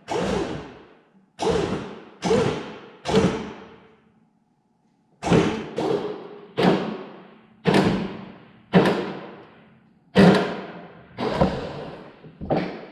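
About a dozen heavy hammer blows on a steel bumper bracket, roughly one a second with a short pause partway through, each ringing out briefly.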